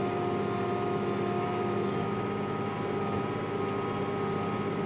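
Tractor engine running steadily under load while pulling a planter, heard from inside the cab as an even drone with a constant hum.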